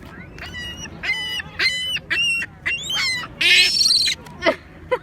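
Seagulls calling in a quick run of short, harsh squawks, about two a second, with one rougher call near the middle and a falling call near the end.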